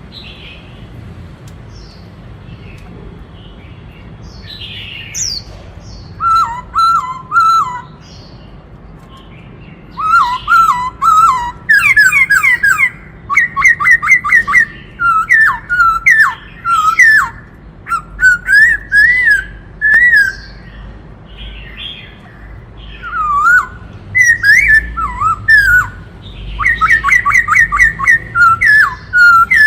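White-cheeked laughingthrush singing loud, varied phrases of fast repeated whistled notes, switching from one phrase type to another. Only faint calls are heard before the song starts about six seconds in.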